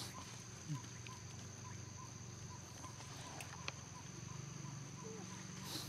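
Forest ambience: a steady high insect drone and a short chirp repeating about two to three times a second, with a few brief squeaks and two sharp clicks.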